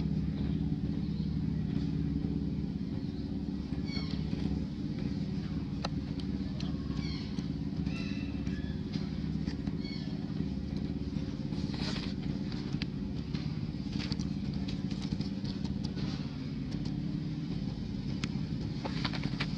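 Steady low motor drone, with faint short high chirps a few seconds in and scattered light clicks.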